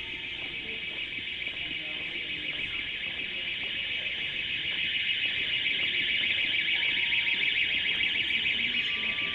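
An electric alarm ringing continuously, high-pitched, growing steadily louder.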